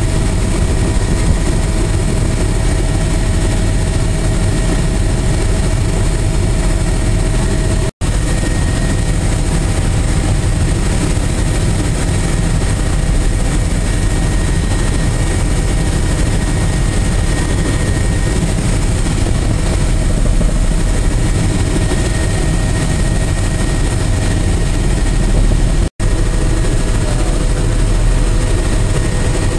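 Helicopter cabin noise in flight: the steady drone of the engine and rotor heard from inside the cabin, broken twice by a brief dropout.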